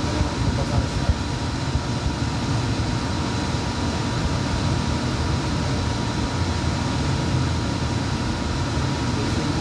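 NJ Transit Hudson-Bergen Light Rail car running at speed, heard from inside the car: a steady low rumble of wheels on track with a thin steady whine over it.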